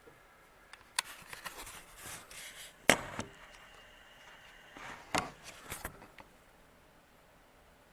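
A few sharp knocks and clattering, the loudest about three seconds in, with a faint steady high tone in the middle.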